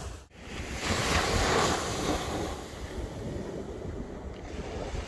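Ocean surf breaking and washing up a sandy beach, with wind buffeting the microphone. A wave swells in about a second in, after a brief dropout in the sound just after the start.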